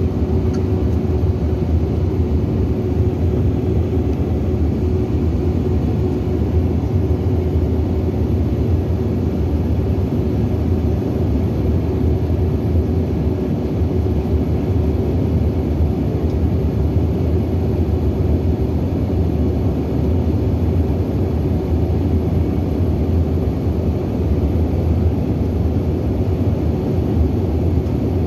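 Steady cabin noise inside a Bombardier CRJ900 airliner under way: a loud, even low rumble of engines and airflow with a constant hum over it. The CRJ900's two turbofans are mounted at the rear of the fuselage.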